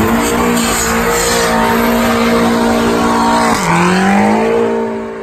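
BMW sedan doing a burnout: the engine is held at high revs with the rear tyres spinning and squealing. About three and a half seconds in, the revs drop briefly and climb back, and the sound eases a little near the end.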